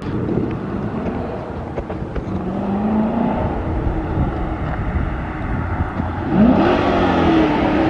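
Dodge Challenger R/T's V8 through a Borla ATAK cat-back exhaust, heard from inside the cabin while driving: a deep exhaust rumble, with a sharp rise in revs and loudness about six seconds in.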